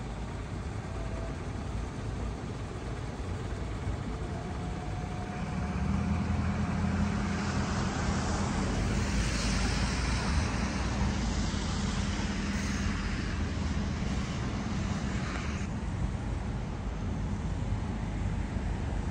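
City bus engine running as the bus pulls away from a stop, its low rumble growing about five seconds in, with street traffic noise and a hiss that stops fairly suddenly near the end.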